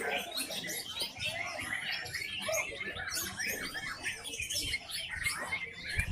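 Caged white-rumped shamas (murai batu) singing at a bird contest: a dense tangle of quick, overlapping whistles and chirps, with several birds singing over one another.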